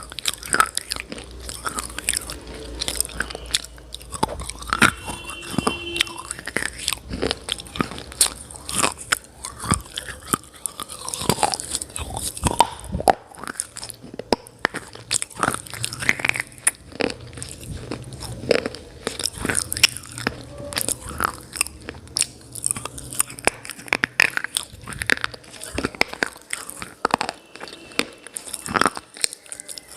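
Close-miked biting and chewing of hard baked clay pieces: a steady run of sharp, brittle crunches and crackles, one bite after another.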